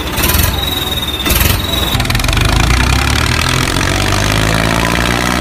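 An engine starts running steadily about two seconds in, with a low, even hum. Before it come two short noisy bursts with a steady high tone between them.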